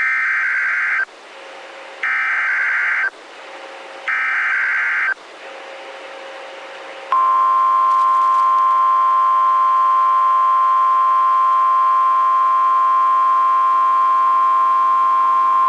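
NOAA Weather Radio emergency alert: the SAME data header sends three harsh digital bursts of about a second each, a second apart, over faint radio hiss. About seven seconds in, the steady 1050 Hz warning alarm tone begins and holds, signalling that a warning broadcast follows.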